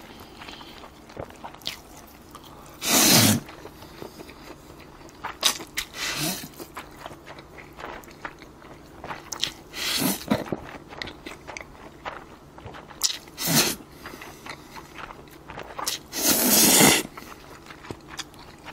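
A man slurping bibim-myeon noodles: five loud slurps a few seconds apart, with chewing between them.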